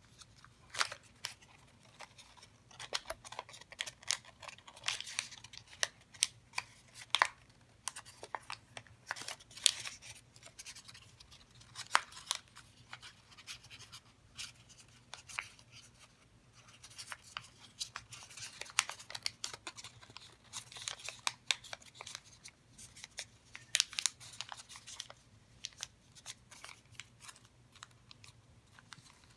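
Thin origami paper being folded and creased by hand: irregular crisp crinkles, rustles and sharp crackles as the paper is pinched and pressed into folds.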